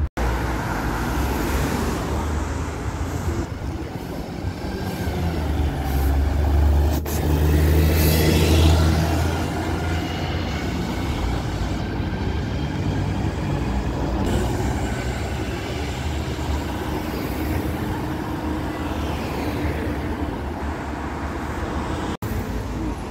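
Street traffic with a city bus passing close by: a low engine drone that builds to its loudest about a third of the way in and then eases off into steady road noise.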